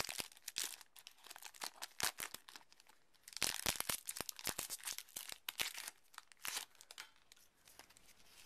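A foil Yu-Gi-Oh! booster pack being torn open and its wrapper crinkled by hand, in irregular clusters of crackling that die down near the end.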